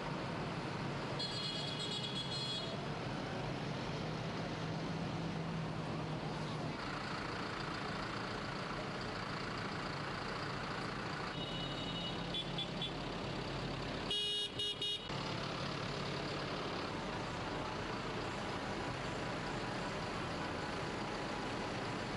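Diesel engines of a line of farm tractors running in the street. Short horn toots come about a second in and again around twelve seconds in, and a louder, choppy horn blast comes around fourteen seconds in.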